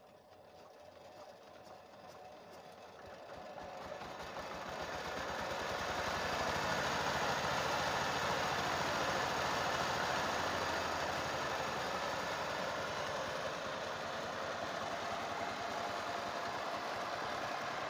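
Single-cylinder diesel engine of a 12 HP power tiller running. It grows steadily louder over the first six seconds or so, then runs at an even pace.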